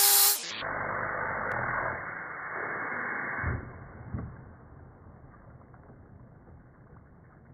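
Compressed air from a blow-gun nozzle blasting into a bag of water around a fidget spinner: a loud rushing hiss mixed with churning and splashing water for about three seconds. It cuts off sharply with a low thump, then fainter splashing and dripping fades out. A short loud blip sounds at the very start.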